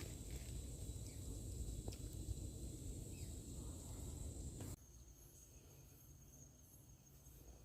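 Faint steady high-pitched insect chirring over a low rumble of wind on the microphone. About four and a half seconds in, the rumble cuts off and a steady, slightly pulsing insect trill carries on alone.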